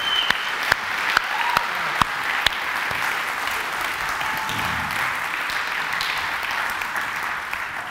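Large audience applauding, a dense steady patter of many hands clapping, tailing off slightly near the end.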